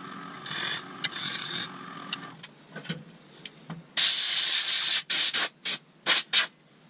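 Carbide turning tool cutting the spinning wood-and-resin blank on a wood lathe, with a steady hiss of the cut for about two seconds before it stops. After that come a few scattered clicks, then a loud hissing burst of nearly a second about four seconds in, and four or five short loud hissing bursts after it.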